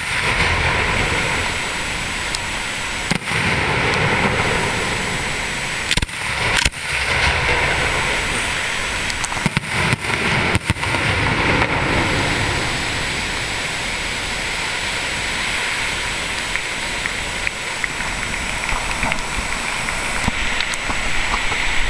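Aerial firework shells bursting with sharp bangs, about eight of them in the first half, over a continuous noisy background. A quick run of small crackles follows near the end.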